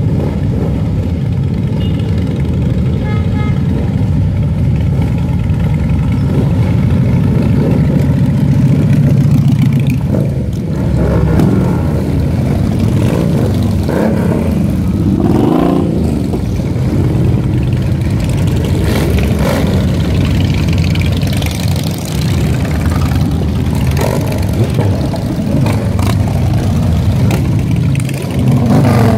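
A procession of Harley-Davidson motorcycles riding slowly past, their V-twin engines running loud and low, with the engine note rising and falling as riders rev about halfway through and again near the end.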